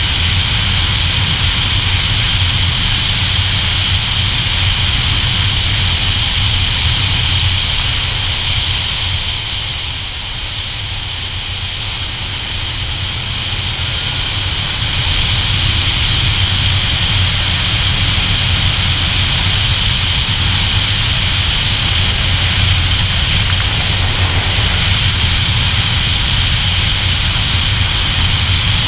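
Motorcycle riding along at road speed: the engine runs steadily under a heavy rush of wind on the mic. The sound eases off for a few seconds about ten seconds in, then builds back up.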